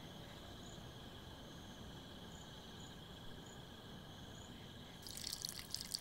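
Faint night ambience of crickets chirping: short high chirps about every half second over a steady faint hiss. A faint crackling comes in about five seconds in.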